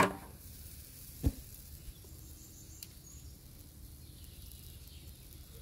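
Quiet outdoor ambience with a faint, steady high insect hiss. A sharp loud click right at the start and a single knock about a second in stand out.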